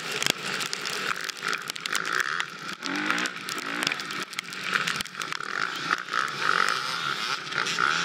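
Four-stroke single-cylinder dirt bike engine revving up and down as the bike is ridden over rough ground, with frequent rattles and knocks from the bike.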